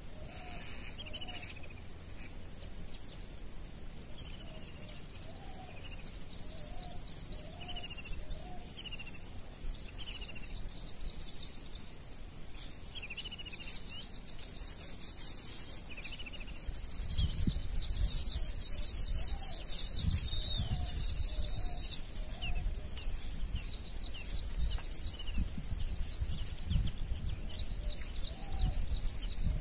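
Wild birds chirping and trilling in many short calls over a steady high-pitched hiss. From a little past halfway, low rumbling buffets on the microphone join in.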